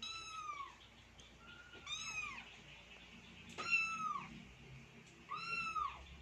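Kitten mewing four times in high, thin calls, each rising and then falling in pitch.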